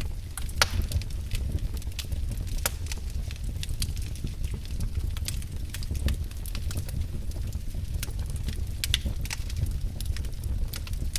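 Wood fire in a fireplace crackling: frequent irregular sharp pops and snaps over a steady low rumble.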